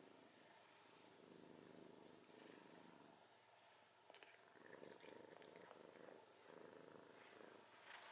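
Scottish Fold cat snoring faintly in its sleep, a soft rasp that swells and fades with each slow breath.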